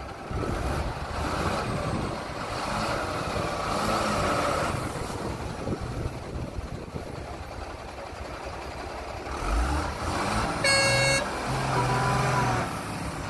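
Heavy truck and JCB machine engines running with a continuous rough rumble, broken about eleven seconds in by a short horn blast.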